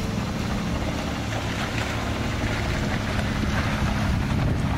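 The 4.0-litre straight-six of a 1997 Toyota Land Cruiser 80 series running at low revs as the truck crawls slowly through a rocky ditch, with a steady low hum and faint clicks of stones under the tyres.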